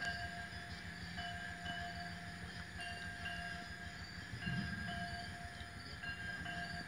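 Outdoor night background: short high-pitched calls at several pitches repeating irregularly, about once a second, over a steady low rumble, with a brief low murmur about four and a half seconds in.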